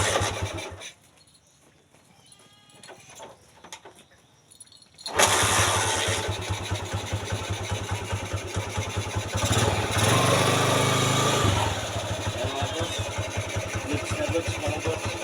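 Honda TMX155's single-cylinder four-stroke engine runs briefly and stops about a second in, then starts again about five seconds in and idles, with a short rev around ten seconds. It is starting readily on a swapped-in Bajaj CT100 carburetor, which cured its hard starting.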